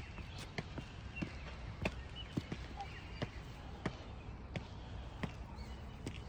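Light footsteps on concrete: faint sharp taps at a walking pace, about one every half to two-thirds of a second.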